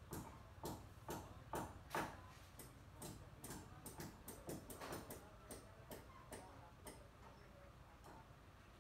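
Faint, regular sharp clicks or taps, about two a second, that stop about seven seconds in.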